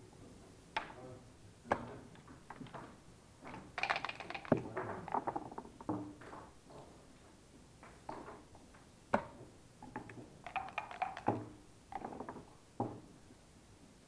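Backgammon checkers and dice clicking and clattering on a board: scattered single clicks, with busier rattling runs about four seconds in and again about ten seconds in, and one sharper knock between them.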